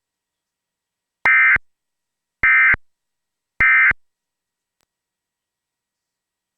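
Emergency Alert System end-of-message (EOM) code: three short bursts of SAME digital data tones, each a rapid two-tone warble, about a second apart. This signals the end of the alert broadcast.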